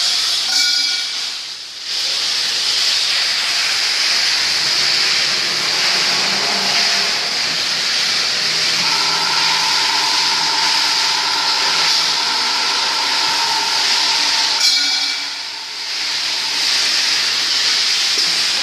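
Automatic pipe-cutting machine's alloy circular saw blade cutting metal pipe: a loud, steady, high hiss of the blade through the metal. A ringing tone joins it about halfway through. The noise drops away briefly about two seconds in and again near the end, between cuts.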